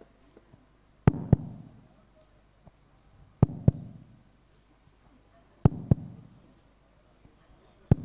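Heartbeat sound effect: slow lub-dub double thumps, four of them a little over two seconds apart, each fading out.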